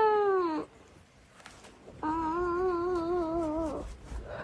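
Domestic cat giving two long, drawn-out yowls: the first tails off falling in pitch just after the start, and after a pause the second is held for nearly two seconds with a wavering pitch.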